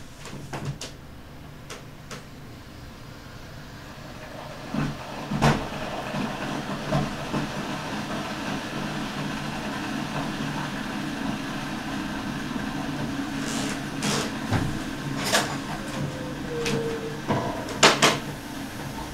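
A steady rumbling noise swells over the first few seconds and holds. Several sharp knocks and clicks sound over it, and there is a brief squeak near the end.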